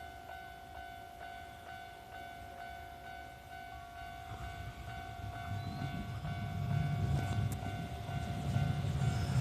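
Japanese level-crossing warning bell ringing in a steady repeating rhythm, about two strikes a second. From about four seconds in, the low rumble of an approaching Kintetsu train grows louder.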